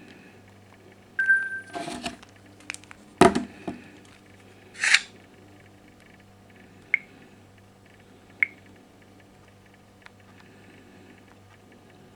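Handling noise from the phones being picked up and set down: scattered clicks and knocks, a short beep about a second in, the loudest knock around three seconds, and a brief swish near five seconds, over a low steady hum. No ringtone or alarm tune is sounding.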